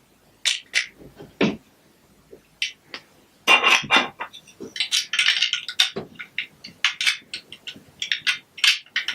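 Plastic Lego Duplo bricks clicking and clattering as they are handled and pressed together: a few separate clicks in the first second and a half, then a dense run of clicks and rattles from about three and a half seconds in.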